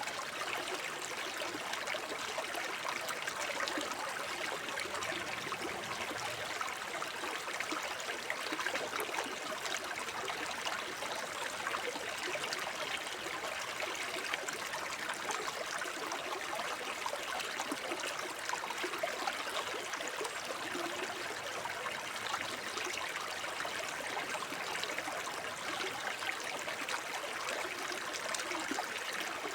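Shallow forest stream babbling over stones: a steady, even rush of water with fine splashing and gurgling.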